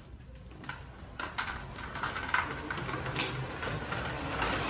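Drift trike rolling across a smooth floor: a rattling scrape from its wide rear wheels and frame with small clicks, growing louder from about a second in.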